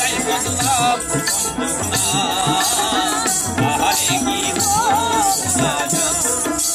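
Bengali folk music: a plucked dotara with shaken rattle-like percussion and a wavering melody line above it, with no lyrics.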